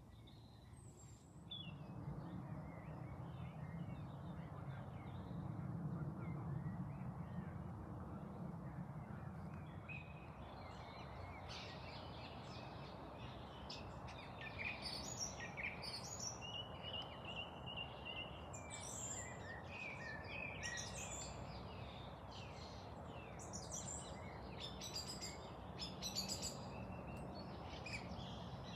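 Birds chirping and calling repeatedly over a steady background hiss, the calls starting about a third of the way in and growing busier; a low rumble sits under the first several seconds.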